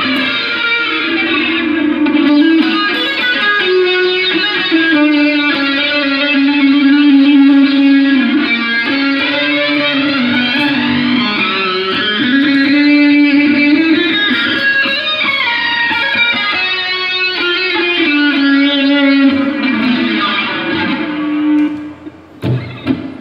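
Electric guitar played through a Zoom GFX-4 multi-effects processor, sustained notes coloured by a sweeping effect that rises and falls every couple of seconds. Near the end the playing breaks off briefly as a footswitch is pressed, and a different, deeper tone follows.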